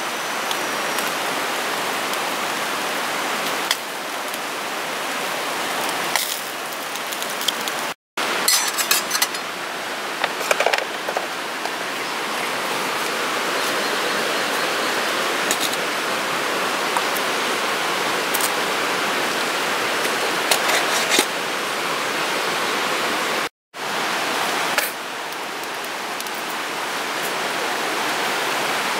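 A steady rushing hiss, with a few light metal clinks of steel camp tableware being handled.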